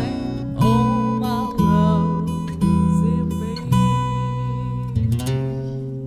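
Acoustic blues instrumental passage on guitar with a low bass line. New notes are struck about once a second and left to ring, and a few of them waver in pitch in the first couple of seconds.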